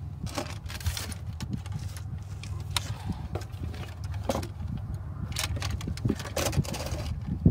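Handling noise from the Geonics EM-31 MK2 instrument being lifted and turned by hand: scattered knocks, clicks and rustles of its plastic console and fittings, over a steady low rumble.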